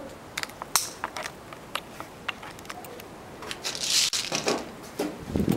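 Plastic and metal clicks of airsoft gas blowback pistol gear being handled, then a short high hiss about four seconds in, typical of green gas being charged into the magazine. Low knocks follow near the end.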